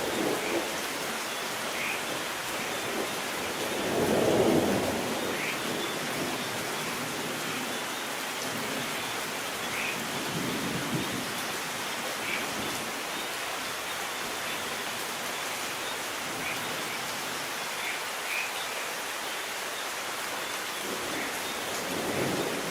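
Steady rain falling, with rolls of distant thunder; the loudest roll swells and fades about four seconds in, and weaker ones come later.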